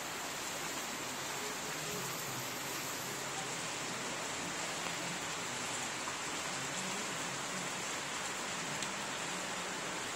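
Heavy rain pouring down steadily on fields and trees: a dense, even hiss.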